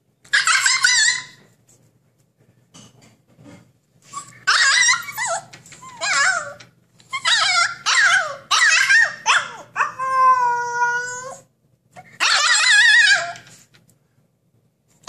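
Siberian husky puppy howling and yowling in about eight high, wavering calls with short pauses between them, one of them held on a steady note about ten seconds in. The puppy is protesting at being shut in its pen.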